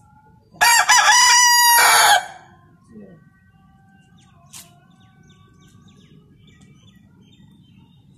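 White rooster crowing once, a loud cock-a-doodle-doo lasting under two seconds about half a second in.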